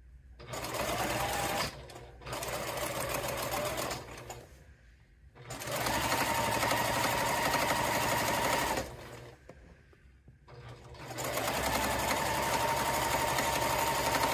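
Straight-stitch sewing machine stitching a rolled hem in four runs of a few seconds each, stopping briefly between them. A steady motor whine runs under the needle's rapid clatter.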